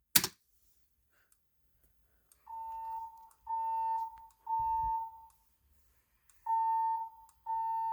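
A sharp click as the fire alarm pull station is pulled. About two seconds later the fire alarm speaker strobe starts a temporal-three evacuation tone: three steady beeps under a second each, a pause of about a second, then the next group of three begins.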